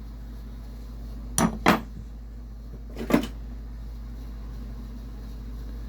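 Metal hand tools clinking against one another as they are handled: two quick clinks about a second and a half in and another near three seconds, over a steady low hum.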